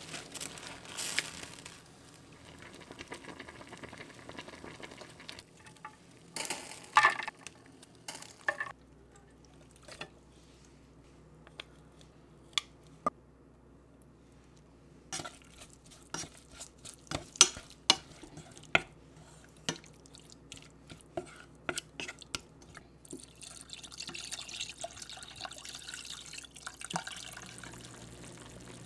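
Kitchen cooking sounds: young napa cabbage leaves pushed into a stainless pot of water, sharp clinks of a spoon against the pot, and a pot of doenjang soup bubbling on the boil near the end.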